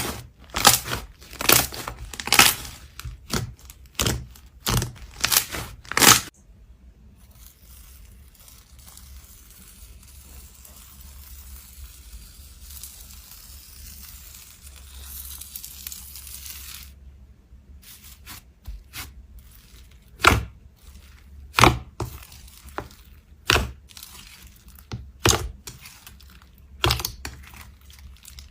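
Slime being pressed and squished, giving a quick run of sharp clicks and pops, then a softer stretch of fine crackling, then more scattered pops.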